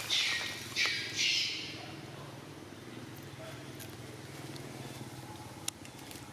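Several short rustles in the first two seconds, then a low steady hum with one sharp click near the end.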